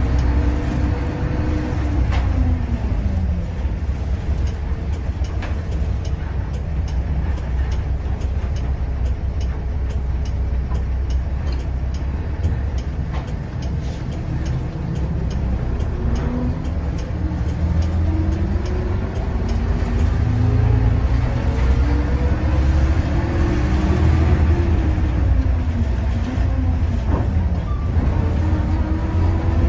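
Mitsubishi M430 bus engine heard from inside the cabin, a steady low rumble pulling the bus along. Its pitch drops about three seconds in, climbs steadily as the bus picks up speed, drops again near the end at a manual gear change, then starts to climb again.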